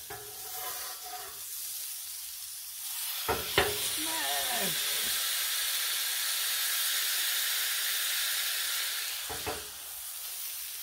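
Ground-beef burger sizzling on a hot flat-top griddle. About three and a half seconds in, a smash press knocks down onto it, and the sizzle grows louder and steady while the patty is pressed flat. It eases off near the end as the press is lifted.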